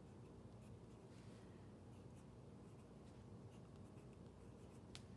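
Faint scratching of a black pen writing letters on paper, in short strokes, with one sharp click near the end.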